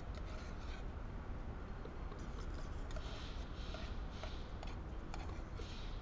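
A spoon scraping and clinking inside a metal camping pot in a run of short strokes, over a steady low rumble.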